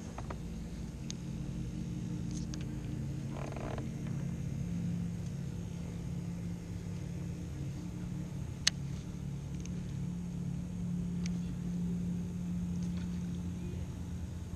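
Steady low drone of a boat motor running, with a brief rush of noise about three and a half seconds in and a single sharp click about halfway through.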